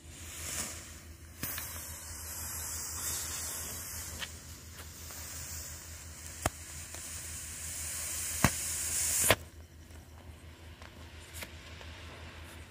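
Colour smoke crackers burning with a loud, steady hiss that starts about a second and a half in and cuts off abruptly near nine seconds. Two sharp cracks sound in the second half of the hiss.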